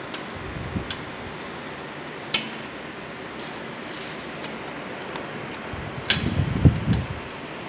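Spanner clicking against nuts and bolt heads as bolts on a lathe carriage are tightened: a few scattered sharp metallic ticks, then a short run of dull knocks near the end, over a steady background hiss.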